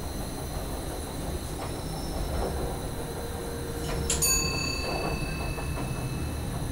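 SGM Sprinter electric multiple unit running, heard from the driver's cab: a steady low rumble, with a sharp click about four seconds in followed by thin high ringing tones that fade over a second or two.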